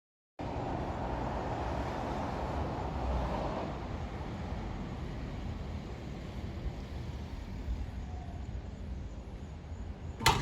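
Steady outdoor background noise, a low rumble and hiss, with a sharp click near the end just before the motor siren begins.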